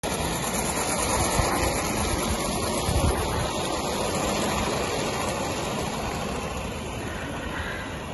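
Gauge 1 live-steam model of an LNER A4 locomotive running with a goods train, a steady rush of steam and exhaust that fades slowly as it pulls away, with wind buffeting the microphone.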